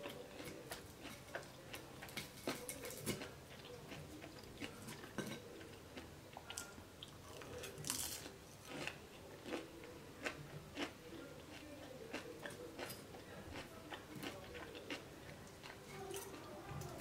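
A person chewing and biting food, with many short, irregular crunchy clicks.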